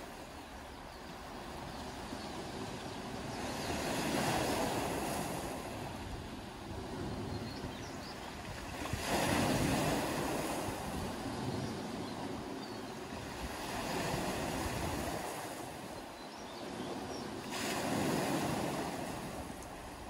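Small sea waves washing up a pebble beach and drawing back, the surf swelling and fading about every four to five seconds, with the loudest, most sudden surge about nine seconds in.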